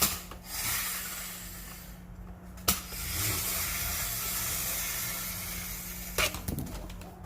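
Three sharp clicks of plastic parts and tools being handled, with a steady hiss between them, as a toy-grade RC car's steering assembly is worked at and pried on.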